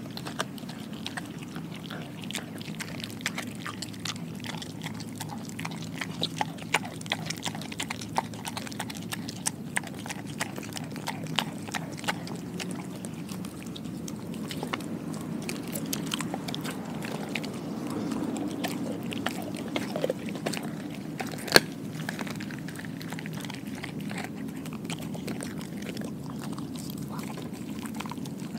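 A dog chewing and biting raw meat, with frequent short sharp clicks from its teeth. One much louder click comes about two-thirds of the way through, over a steady low hum.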